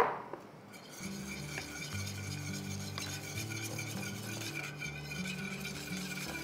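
Wire whisk stirring rice-flour batter into simmering water in a stainless steel pan, a steady scraping against the metal, after a sharp knock at the very start. Soft background music runs underneath.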